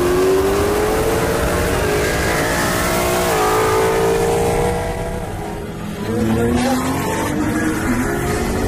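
Dodge Challenger Hellcat's supercharged V8 at full throttle, heard from inside the car, with a Mustang GT racing alongside; the engine pitch climbs steadily, with an upshift about three seconds in. Past the middle the sound dips, and another car's engine starts climbing again from a lower pitch.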